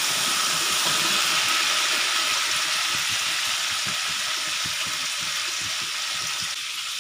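Onions, urad dal, green chillies, ginger and curry leaves sizzling steadily in hot oil in a wok, stirred with a wooden spatula at first; the sizzle eases slightly toward the end.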